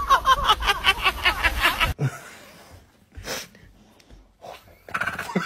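A person laughing in a quick, even run of "ha-ha" sounds, about six a second, which stops abruptly about two seconds in. Then it is quiet, with a couple of short hisses.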